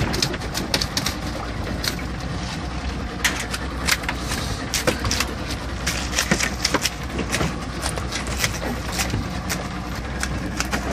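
Irregular clicks, taps and scratchy rattles of western rock lobsters' spiny shells and legs knocking and scraping against each other, the coiled rope and the deck as they are handled, over a steady low rumble.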